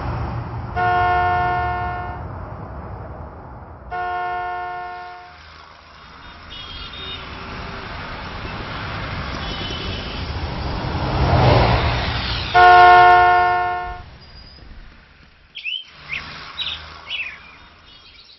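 Road traffic passing, with three long vehicle-horn blasts about a second, four seconds and twelve and a half seconds in, the last the loudest. Faint bird chirps near the end.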